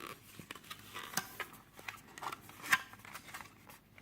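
Tiny plastic spoon stirring candy powder and water in the small plastic tray of a Nerunerunerune candy kit: irregular light scrapes and clicks of plastic on plastic, the sharpest about a second in and again near three seconds.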